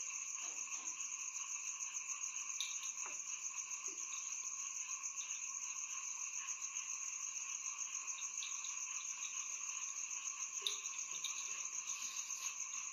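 Steady chorus of night insects, several trilling at once at different pitches, with a few faint clicks now and then.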